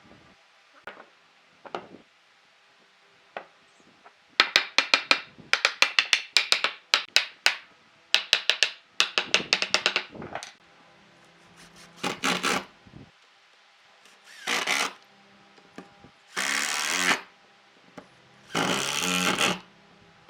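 Hand tools working wood. First comes a long series of rapid sharp taps in runs. Then four separate scraping strokes, each up to about a second long, the last two the longest.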